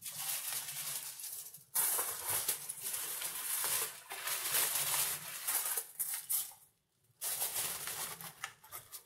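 Aluminium foil crinkling and rustling under hands rolling up a stuffed pork roll, in irregular bursts with two short breaks, about two seconds in and about seven seconds in.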